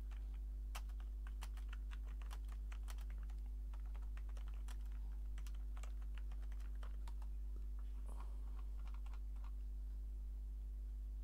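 Typing on a computer keyboard: a quick, uneven run of key clicks that stops a couple of seconds before the end, over a steady low electrical hum.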